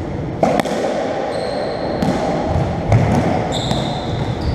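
Racketball rally in a squash court: about five sharp cracks of the ball hitting racquets, walls and floor, ringing on in the hard-walled court, with low footstep thuds on the wooden floor. Two high shoe squeaks come about a second in and again near the end.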